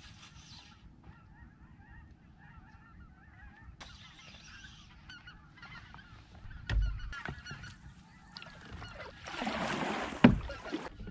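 A flock of geese honking faintly, many calls overlapping. A low thump comes about two-thirds through, and near the end a kayak paddle stroke splashes, the loudest sound here.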